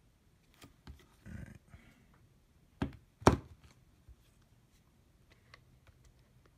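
Handling noise from a handheld clamp meter: scattered clicks and a brief rustle, then two sharp knocks about half a second apart near the middle.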